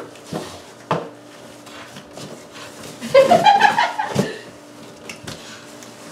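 Cardboard box knocked and scraped as a dog and a person pull at it, with a few sharp knocks. Between about three and four seconds in there is a short, louder voice-like sound.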